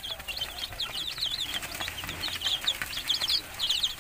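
A brood of young Rhode Island Red and native Darag chicks peeping nonstop, many short, high, falling cheeps overlapping one another.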